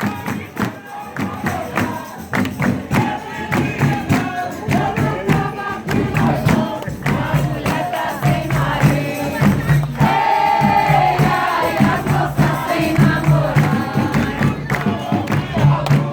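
Folia de Reis ensemble playing and singing: several voices sing together over a steady beat of hand percussion, with a pulsing low note underneath.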